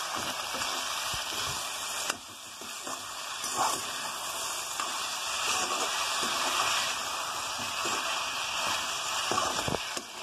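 Chopped ivy gourd and potato sizzling steadily in a hot wok while a metal spatula stirs them, scraping against the pan several times.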